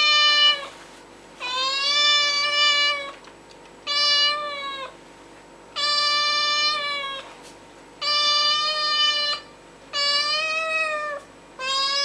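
Domestic cat meowing again and again, each meow a drawn-out call of one to one and a half seconds on a fairly even pitch, repeating about every two seconds.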